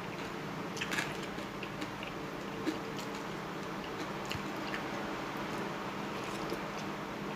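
Someone eating noodle soup: chewing with scattered small clicks, over a steady background hum.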